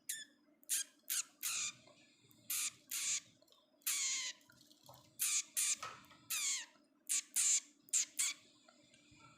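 Pet budgerigars giving a rapid series of short, harsh squawking calls, about two a second, some sliding down in pitch.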